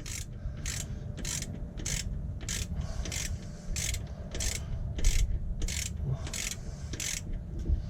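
Socket ratchet working a 12 mm alternator adjuster bolt in short, regular strokes. Each back-swing gives a brief run of pawl clicks, about three every two seconds, as the alternator belt is tensioned.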